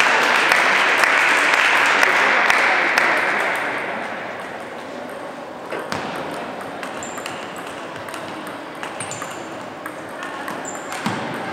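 Table tennis ball being struck back and forth in a rally: sharp pings and clicks off the bats and table in the second half. Before that, a murmur of voices in the hall fades out over the first few seconds.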